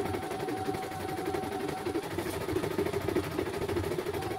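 CNY E900 computerized embroidery machine stitching a design: a rapid, continuous needle-and-hoop clatter, sped up to double speed.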